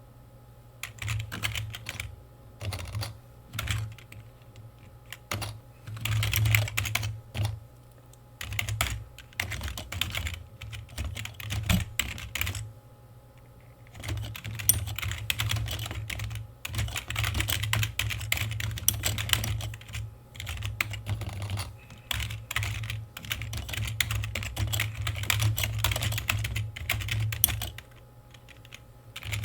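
Typing on a computer keyboard: runs of rapid key presses broken by short pauses of a second or so.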